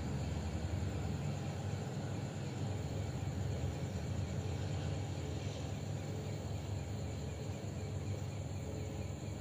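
Steady low rumble with a faint, even chirring of night insects above it.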